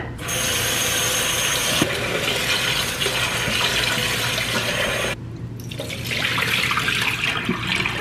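Kitchen tap running into a pot of rice as a hand swirls the grains to rinse off the starch. After a short pause about five seconds in, the cloudy rinse water is poured out of the pot into a stainless steel sink.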